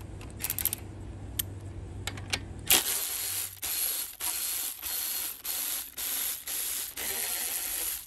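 Cordless electric ratchet backing out the bolts on an AR45 diaphragm pump head, running in a string of about eight short bursts from about three seconds in. Before that come a few light clicks over a steady low hum.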